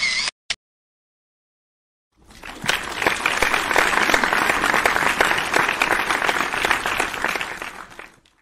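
Crowd clapping. The applause swells in about two seconds in, holds steady, and fades away near the end.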